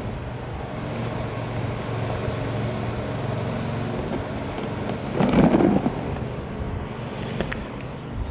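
Steady city traffic hum with a low drone, and a short, louder noisy swell about five seconds in.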